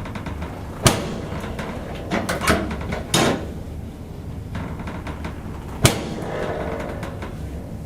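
Sharp cracks from a chiropractic adjustment of the spine: a single loud crack about a second in, a quick cluster of smaller cracks a little after two seconds and one more around three seconds, then another loud crack near six seconds.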